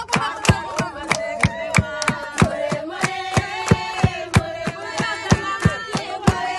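Voices singing together over a steady beat from a tall wooden barrel drum struck with a stick, about three strokes a second, with hand clapping.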